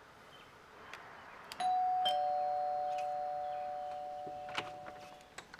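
Two-note doorbell chime, a higher 'ding' then a lower 'dong' about half a second later, both ringing on and fading slowly over about three seconds. A faint click comes near the end.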